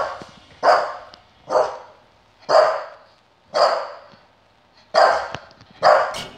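Staffordshire bull terrier barking: single barks repeated about once a second, with a slightly longer pause a little past the middle.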